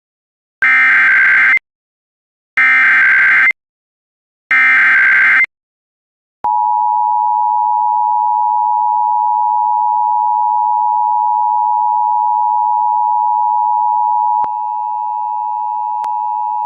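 Emergency Alert System tones: three one-second bursts of buzzy SAME header data about a second apart, then from about six seconds in the steady two-tone EAS attention signal (853 and 960 Hz) sounding continuously.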